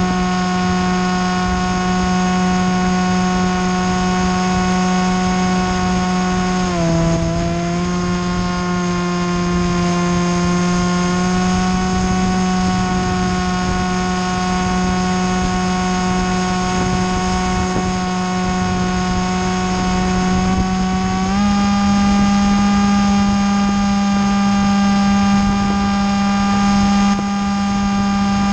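Radio-controlled model aircraft's motor and propeller whining steadily in flight, heard from its onboard camera. The pitch dips suddenly about seven seconds in, climbs slowly back, and steps up again a little after twenty-one seconds as the throttle changes.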